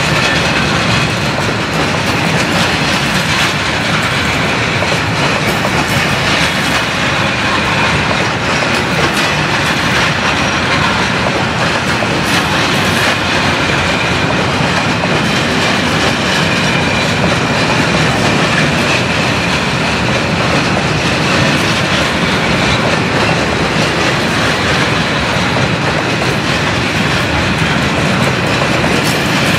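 Container freight train's loaded flat wagons rolling past close by at a steady speed: a continuous, loud rolling noise of steel wheels on the rails, with a faint steady high tone over it.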